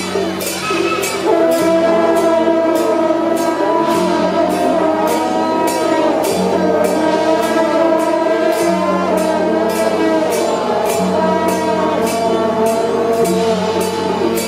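Loud music with singing, a steady percussive beat and a changing bass line.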